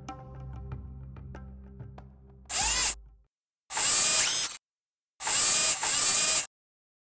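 A low music drone with faint ticks fades out. Then a character speaks in three short bursts with silences between, the last two being the lines "It's a bit..." and "Too quiet."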